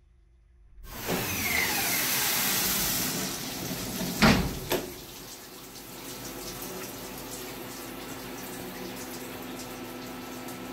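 A rushing hiss in the CNC mill's enclosure for about three seconds, then two sharp knocks about half a second apart, then a steady machine hum with a faint tone while the mill vise is opened by hand.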